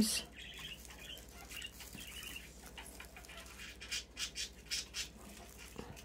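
Faint chattering of pet birds, with soft rustles of the paper cupcake liners and twine being handled, clustered about four to five seconds in.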